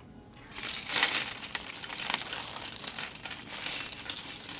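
Plastic bags of building-block pieces crinkling as they are handled, with small clicks from the pieces inside, starting about half a second in.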